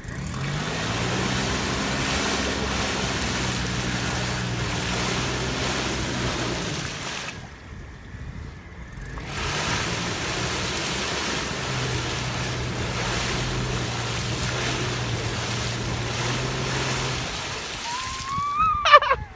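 VW Passat B5 4motion's engine held at high revs while its wheels spin in mud, with a steady rush of tyres churning and spraying mud. It eases off for about two seconds near the middle, then revs up again.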